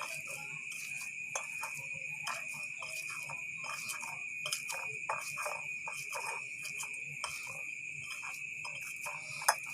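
Fresh basil leaves soaked in eucalyptus oil being squeezed and kneaded by hand, giving irregular soft wet crackles and rustles as the leaves break down. A steady high-pitched whine runs underneath throughout.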